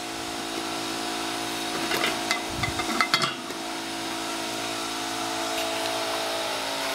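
A steady mechanical hum, like a motor running, with a few sharp metallic clinks and knocks about two to three seconds in as a metal pot lid is set upside down on the pot.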